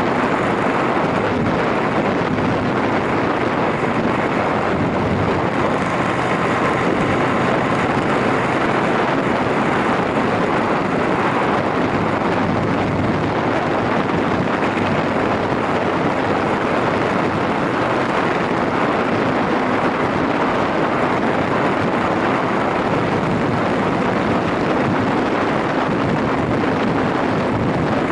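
Steady wind rush over the microphone from a moving motorcycle, with the Yamaha SRX400's single-cylinder engine running evenly underneath at a constant speed.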